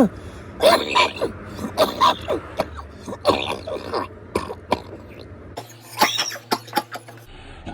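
A rapid series of short, rough, cough-like vocal bursts, a few each second.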